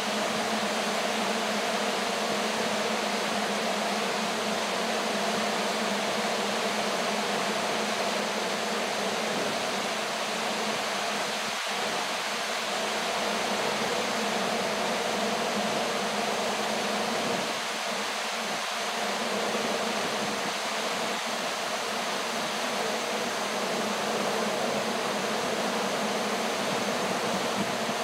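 Steady mechanical whirring hum over a broad hiss, unchanging throughout, typical of small electric motors and spinning propellers.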